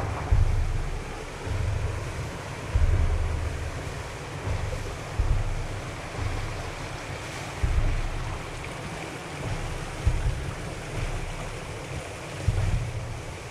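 Steady rush of flowing water, with irregular low buffeting from wind on the microphone.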